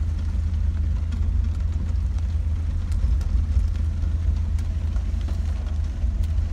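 Car driving on a wet road, heard from inside the cabin: a steady low engine and road rumble, with scattered light taps of rain on the windscreen.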